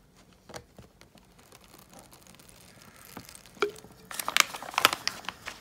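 A clear plastic MRE ration-heater sleeve being handled: faint at first, then a cluster of crinkles and clicks about two thirds of the way in.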